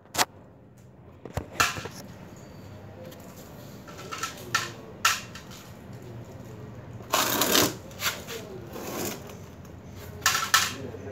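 Small parts handled by hand on a hard floor: scattered clicks and knocks, with a longer rustling, clattering burst about seven seconds in and a shorter one near the end.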